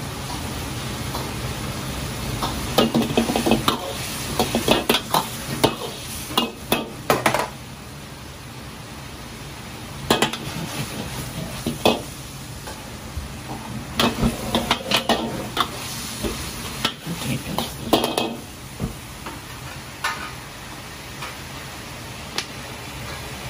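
A metal ladle scraping and clattering against a carbon-steel wok as chicken wings in a reduced sauce are stirred and tossed, in three bursts of rapid strikes with pauses between. Sizzling and a steady rushing background run underneath.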